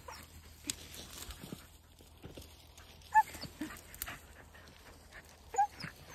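Podenco Andaluz hunting dog giving short high yelps, loudest about three seconds in and again near the end, amid the crackle of dry grass and brush being pushed through.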